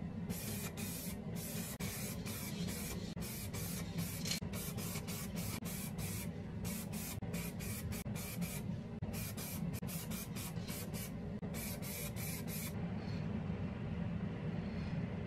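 Aerosol spray-paint can hissing in many short bursts, one after another, as the nozzle is pressed and released over a small steel part; the bursts stop about three seconds before the end. A steady low hum runs underneath.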